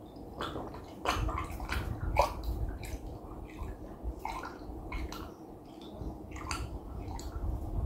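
A person gulping down a drink from a tipped-up cup, a steady run of wet swallows about two a second.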